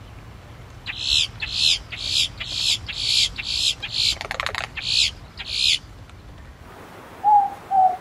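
A grackle calling, a quick run of harsh, high calls for about five seconds. Near the end, a morepork (ruru) owl gives two short hooting notes, its 'more-pork' call.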